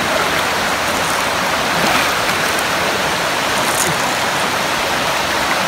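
Steady rush of water spilling over a concrete weir and running through rocky shallows below it.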